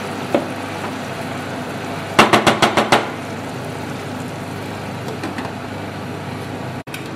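A wooden spatula knocking quickly against the rim of a stainless steel pot, about eight sharp taps in under a second, with faint ticks a little later as a glass lid goes on. Under it runs a steady background hiss.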